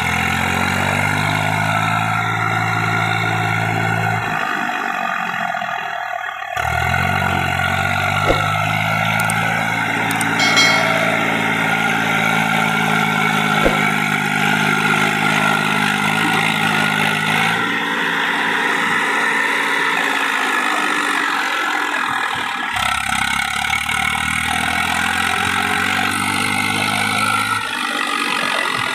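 Eicher 480 diesel tractor engine working hard under load as the tractor and its loaded trailer strain in deep mud. The engine note rises and sags with the throttle and changes abruptly a few times.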